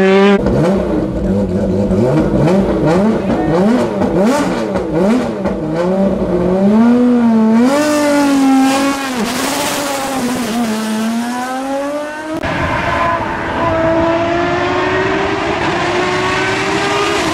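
Single-seater formula race car engines at high revs, the pitch swinging rapidly up and down with throttle changes and gear shifts through corners. About twelve seconds in the sound cuts to another car accelerating, its engine note climbing steadily.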